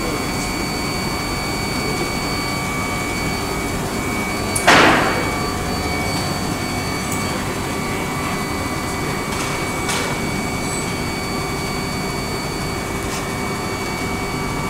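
Furniture-factory machinery on a SIMA softforming line running steadily, with a constant whine. A loud, sharp clack about five seconds in rings briefly, and a lighter knock follows near ten seconds.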